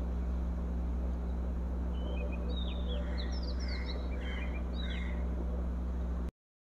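A steady low hum with background hiss; small birds chirp faintly several times between about two and five seconds in. The sound cuts out to silence just before the end.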